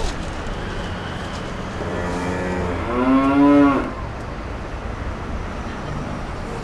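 A person imitating a cow: two moos about two seconds in, a shorter, quieter one followed at once by a louder, longer one that curves slightly up in pitch.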